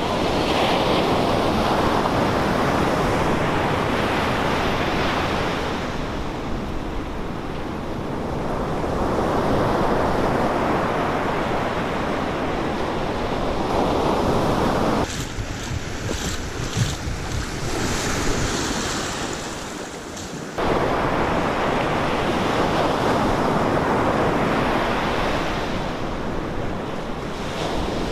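Ocean surf breaking and washing up a sandy beach, swelling and easing every few seconds, with wind buffeting the microphone. About halfway through, the surf sound drops away abruptly for some five seconds, leaving a thinner hiss with a couple of small knocks, then comes back just as suddenly.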